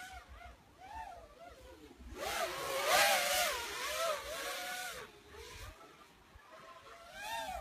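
FPV racing quadcopter with Emax RS2205 brushless motors, its motors and propellers whining. The pitch rises and falls quickly as the throttle changes. It is loudest from about two to five seconds in, with a rush of air noise, and swells again briefly near the end.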